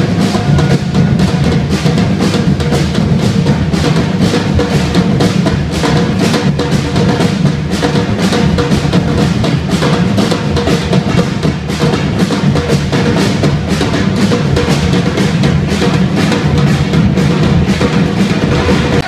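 Drum band playing a steady, driving groove on surdo bass drums, snare drums and tall hand drums, with dense, rapid strokes over a heavy low beat.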